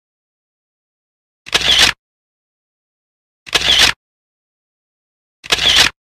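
A camera shutter click sound effect, three times, about two seconds apart, each a short snap of about half a second with silence between.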